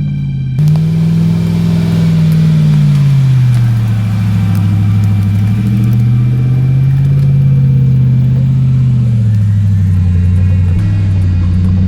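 Truck engine running under load, its revs slowly falling and rising again several times.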